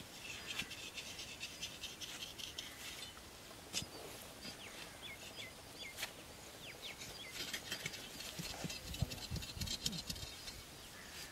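Faint open-field ambience: birds chirping, a steady high hiss, and scattered rustles and taps as sticks are poked into a clump of dry grass, with a few low thumps late on.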